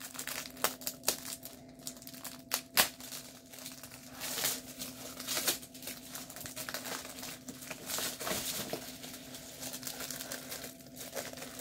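Packaging crinkling and rustling in irregular bursts with small clicks as it is handled and opened, over a faint steady hum.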